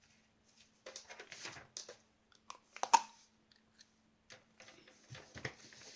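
Scattered light rustling and clicking handling noises, with one sharp click about three seconds in.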